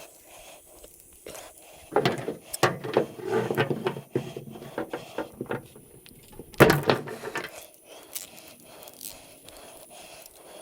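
Scrap metal being handled and sorted: a run of clanks, clatters and scrapes as pieces are moved and dropped, busiest about two to four seconds in, with the loudest single clank a little past the middle.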